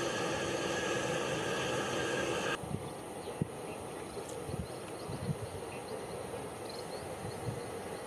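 Boeing 787-8 jet engines running at taxi power: a steady whine with several pitched tones that cuts off suddenly about two and a half seconds in to a quieter, duller steady rumble with a few low thumps.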